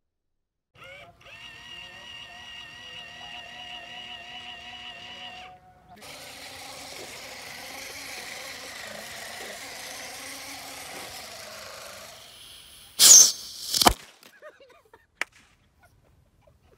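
Small electric motor of a homemade bamboo toy truck whining as the truck drives, with gear and wheel noise over dirt. About thirteen seconds in comes a very loud double burst of noise, far louder than the motor.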